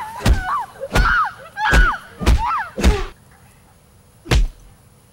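Five quick punch thuds about two thirds of a second apart, each with a short high cry, then one last thud about a second and a half later.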